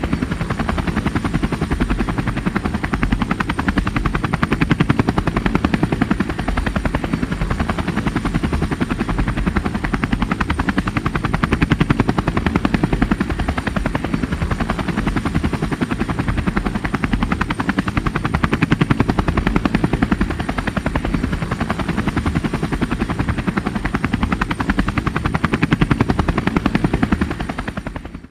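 Helicopter running steadily, its rotor beating in a fast, even chop with a deep engine drone beneath; the sound fades out near the end.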